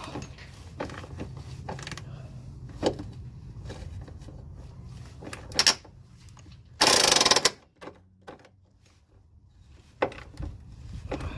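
Impact gun hammering in one short burst of under a second, about seven seconds in, working on a stubborn fastener. A shorter burst comes just before it, and scattered clicks and knocks of hand tools fill the rest.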